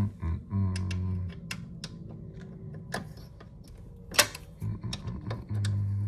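Small metal clicks and taps of a hand Allen key against the screws and aluminium housing of a Vaillant ecoTec boiler's fan assembly as it is fitted to a screw head, the sharpest click about four seconds in. Under them a low hum comes and goes, twice.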